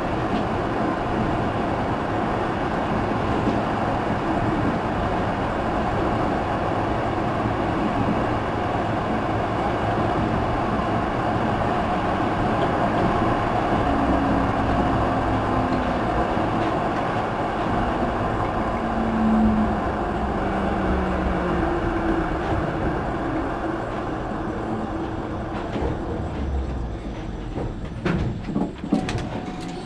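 Braunschweig EGT6 tram running on its track, heard from the driver's cab as a steady rolling and motor noise. Past halfway a motor tone falls in pitch as the tram slows, and near the end the noise eases with a few knocks as it comes into the stop.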